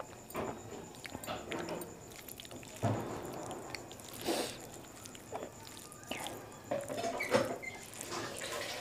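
Eating sounds: chewing a mouthful of rice and kadhi, with fingers squishing and mixing rice on a plate, in irregular short noises.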